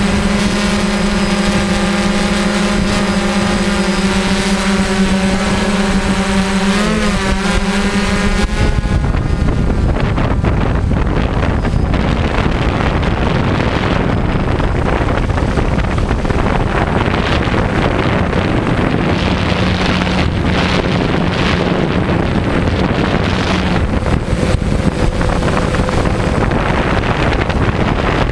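DJI quadcopter's motors and propellers humming steadily while it hovers, with a brief wobble in pitch about seven seconds in. About eight seconds in this changes to a loud rush of wind and propeller noise on the drone's microphone as it flies fast and low.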